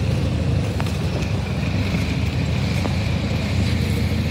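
A tractor engine running with a steady low rumble, plus a faint steady high whine.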